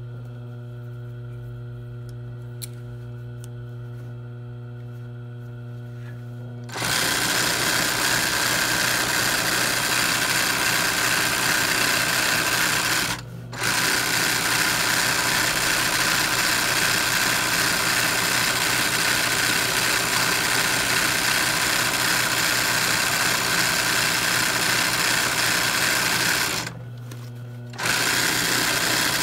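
ROYAL industrial sewing machine doing free-motion embroidery. Its motor hums steadily, then about seven seconds in the needle starts stitching in long continuous runs, louder than the hum. It stops twice briefly, near the middle and near the end, leaving only the motor hum.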